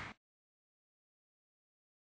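Silence: the last of the preceding sound fades out a split second in, and the track is then completely silent.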